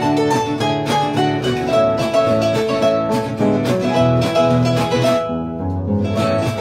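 Harp and acoustic guitar playing a boeremusiek tune together: plucked harp melody over a rhythmically strummed guitar. The guitar strumming pauses briefly about five seconds in.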